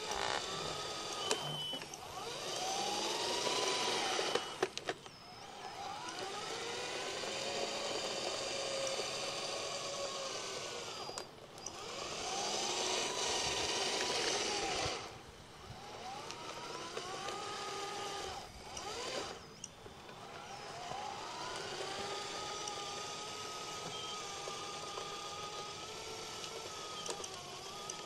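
Radio-controlled model Liebherr 634 crawler loader working: its electric motors whine, rising and falling in pitch as it drives on its tracks. There are two louder spells of hissing, about three seconds in and from about twelve to fifteen seconds in, the second while the loader arm lifts.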